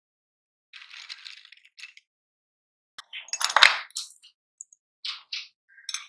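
Colored chalk sticks crunching and clinking in a meat grinder: scattered short crackles with pauses between them, loudest about three and a half seconds in.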